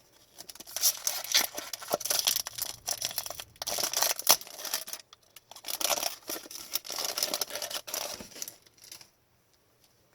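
A foil trading-card pack wrapper being torn open and crinkled, with cards rustling and clicking in the hands, in two long stretches that stop about a second before the end.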